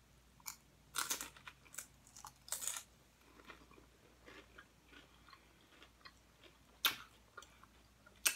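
Close-up eating of crunchy chips: a person bites and chews, with several sharp crunches and softer chewing between them.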